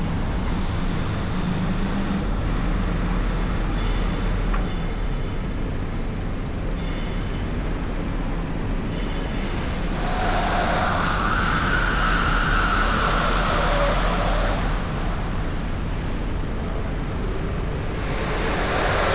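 Car driving through city traffic, with a steady low road and engine rumble. A sustained high tone rises over the traffic about ten seconds in, lasts around five seconds, and comes back near the end.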